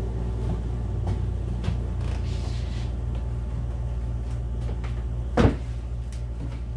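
A Thetford cassette toilet's plastic lid and seat being handled, with a few light clicks and then one sharp plastic knock about five and a half seconds in. A steady low hum runs underneath.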